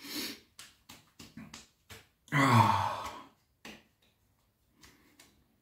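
A man's short breath, then a louder voiced sigh a little over two seconds in, with a few light clicks and taps before and after it.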